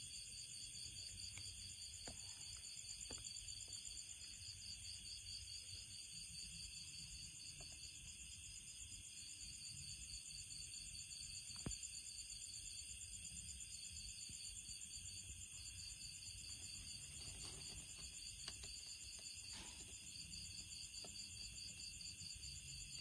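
Night insects trilling steadily in a high, fast-pulsing chorus, with a few faint clicks, the loudest about halfway through.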